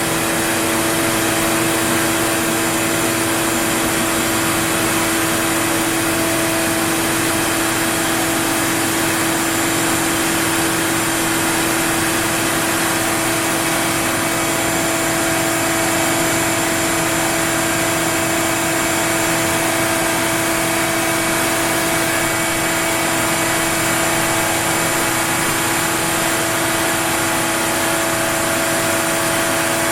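Onefinity CNC router's spindle running with a steady whine as the machine cuts wood.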